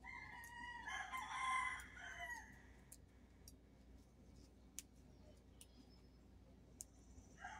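A rooster crowing faintly, one crow lasting about two and a half seconds at the start, with another call beginning near the end.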